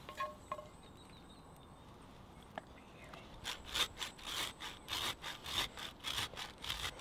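Truffle being grated on a fine rasp grater: quick scraping strokes, about three to four a second, starting about three seconds in. A few light clinks come before the grating.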